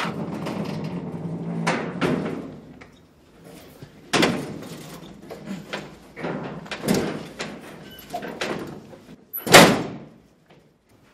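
A heavy steel door being pushed and banged on by hand, a series of knocks and thuds against it, the loudest near the end.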